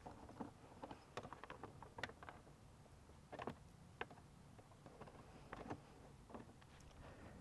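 Faint, irregular clicks and light taps from a socket wrench and small metal parts being handled while loosening bolts.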